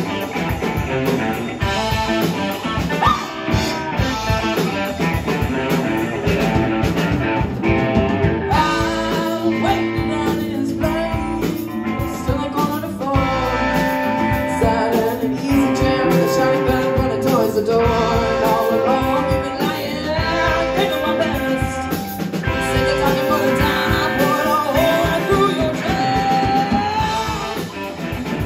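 Live rock band playing an original song: electric guitars over a steady drum-kit beat, with a singer.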